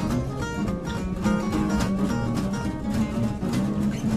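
Two acoustic guitars played together fingerstyle, a bass line under plucked melody notes, with a steady beat of sharp accents.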